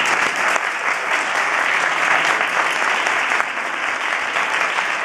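Large audience applauding, loud and steady, many hands clapping together.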